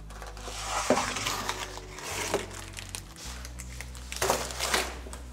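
Baking tray being taken out of a deck oven and laid on a paper-covered bench: a few scrapes and rustles of handling, the loudest near the end, over a steady low hum.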